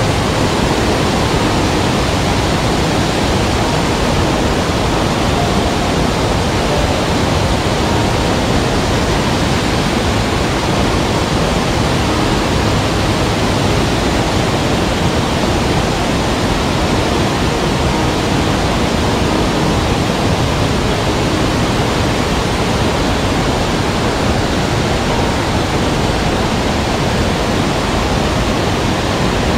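Stream water rushing over rocks: a loud, steady, unbroken rush.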